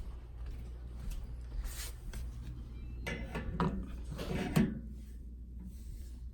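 Handling noises as a handheld anemometer is held up to an air register: a few clicks and rubbing sounds, busiest about three to four and a half seconds in, over a steady low hum.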